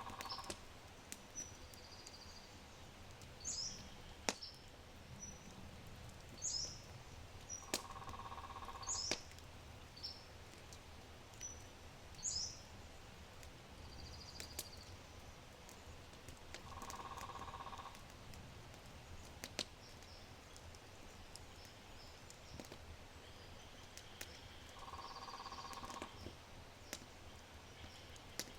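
Oak fire crackling with scattered sharp pops over a low rumble, while small birds chirp high. A buzzier call about a second long comes back roughly every eight seconds.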